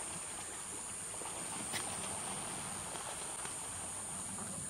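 Steady high-pitched drone of a cicada chorus, with one faint click a little under two seconds in.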